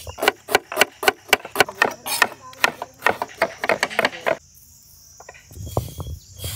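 Knife chopping tomatoes on a wooden board in fast sharp knocks, about five a second, stopping after about four seconds. Near the end comes a low rolling rumble of a stone grinding roller worked on a stone slab. Crickets trill steadily underneath.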